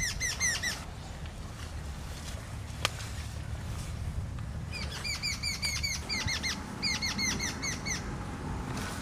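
A small songbird singing rapid strings of short, sweeping high chirps, at the very start and again from about five seconds in until near the end. A single sharp click sounds about three seconds in.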